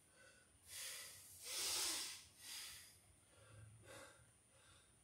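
A man breathing hard, catching his breath after a set of six-count burpees: about four heavy breaths, the loudest about two seconds in, then fainter breathing.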